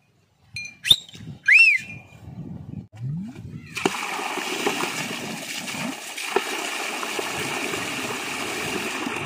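A few short whistle-like chirps, then from about four seconds in a steady splashing rush of water being poured out of a large blackened cooking pot onto the ground.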